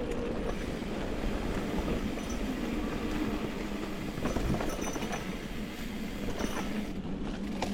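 Mountain bike rolling over a dirt trail: a steady rumble of knobby tyres on the ground with the bike's chain and frame rattling over the bumps.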